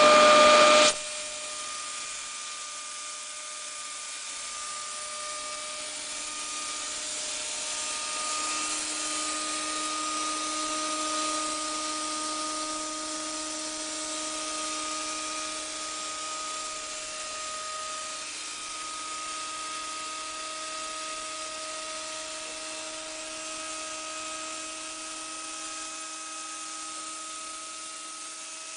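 Homemade CNC machine cutting plexiglass: a steady machine whine with a hiss and a few held tones that shift slightly in pitch now and then. Much louder for the first second, then it drops and runs on evenly.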